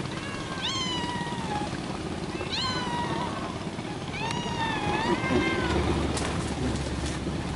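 A cat meowing: three drawn-out meows about two seconds apart, each rising sharply in pitch and then falling away. A low hum starts near the end.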